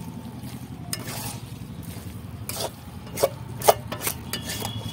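Metal spatula stirring and scraping a thick vegetable mash around a metal kadai, with several sharp scrapes and knocks against the pan in the second half over a steady low hum.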